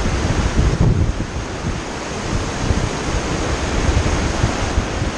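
River rapids rushing steadily, a loud, even wash of white water, with wind buffeting the microphone and gusting hardest about a second in.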